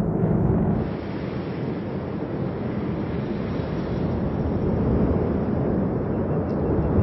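Cumbre Vieja volcano erupting: a steady rumbling noise from the vent as lava fountains, with no distinct blasts. Music cuts off about a second in.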